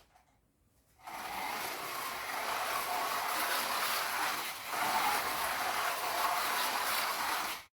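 Carrera GO slot cars running on their plastic track: a steady whirring rattle that starts about a second in, dips briefly midway and cuts off suddenly.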